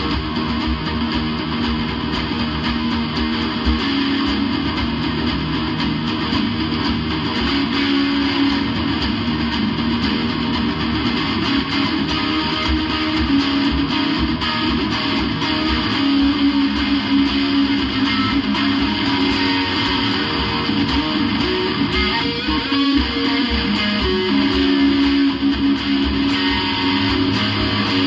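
Electric guitar played through a software amp simulator, strumming and picking continuously with no breaks.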